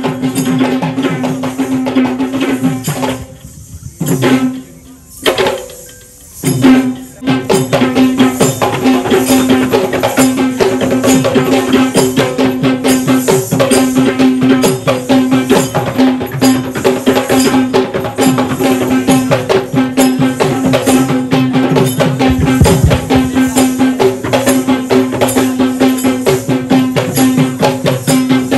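Kandyan geta bera drums played in fast, dense rhythm, with a steady held note sounding over them. About three seconds in the drumming breaks off to a few single strokes, then comes back at full pace around seven seconds in.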